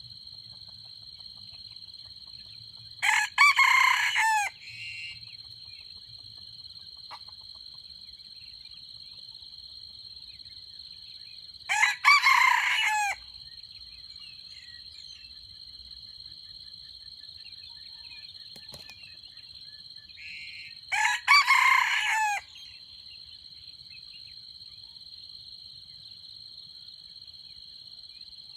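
Red junglefowl rooster crowing three times, each a short crow about nine seconds apart, over a steady high-pitched buzz.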